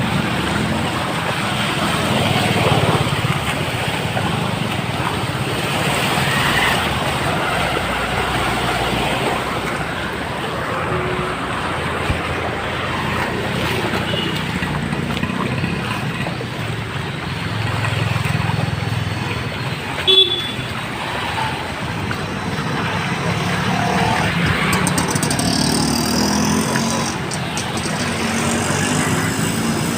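Street traffic: motor vehicles running and passing, with a short sharp knock about twenty seconds in.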